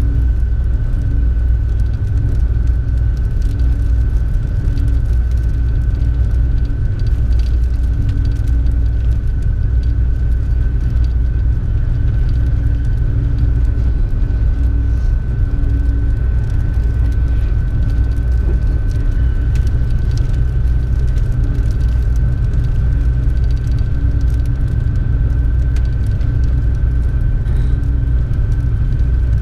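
Steady low rumble of a high-speed train at cruising speed, heard from inside the passenger car, with a constant high tone running through it.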